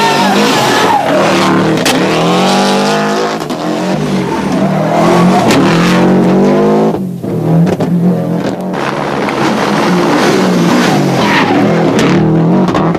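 Subaru Impreza rally car's turbocharged flat-four engine at full throttle, its pitch climbing and dropping again and again through gear changes. It lifts off briefly about seven seconds in, and a few sharp cracks come from the exhaust.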